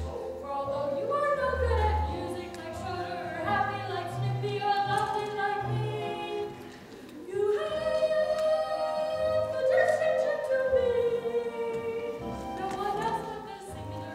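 Two young stage actors, a boy and a girl, singing a musical-theatre number in turns with instrumental accompaniment; there is a short pause just before the middle, then a long held note.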